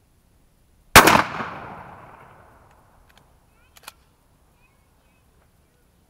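A Remington 870 12-gauge pump shotgun fires a single slug about a second in; the shot dies away over about two seconds. A little before four seconds in come two short sharp clicks, the pump slide being racked back and forward to chamber the next shell.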